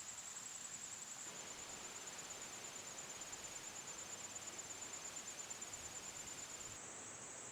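Insects trilling: a steady, high-pitched, rapidly pulsing buzz like crickets, over soft background hiss.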